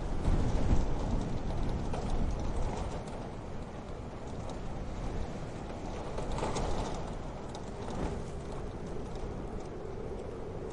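Wood fire crackling in a wood-burning stove: irregular pops and snaps over a steady low rush of burning.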